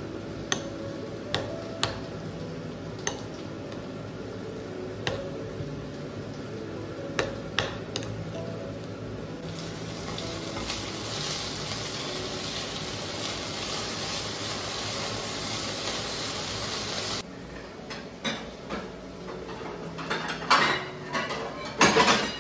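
A metal fork clicks and scrapes against a ceramic bowl while mashing egg salad. Then potatoes sizzle in a frying pan as they are stirred with a spatula, cutting off suddenly. Near the end come clattering knocks of a kitchen drawer and plates being taken out.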